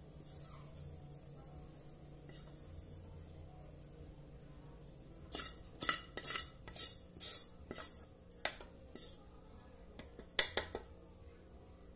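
Wooden spatula scraping fried rice out of a metal wok onto a plate: after a quiet start, a run of quick scrapes and clatters begins about halfway through. Near the end comes one sharp knock against the wok, the loudest sound.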